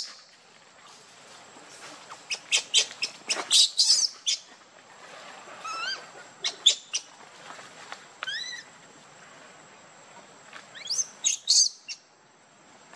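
Baby macaque crying: several bouts of high-pitched squealing cries, some rising in pitch, with pauses between.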